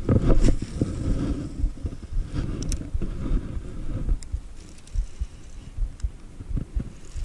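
Handling noise of a cast and retrieve with a spinning rod and reel in an aluminum jon boat: irregular low knocks and rumbles, heaviest in the first second, with a few sharp clicks spaced a second or more apart.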